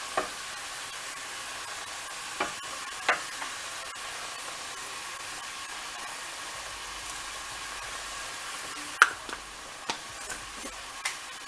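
Ground beef sizzling steadily as it browns in a skillet, with a few sharp clicks and knocks; the loudest knock comes about nine seconds in.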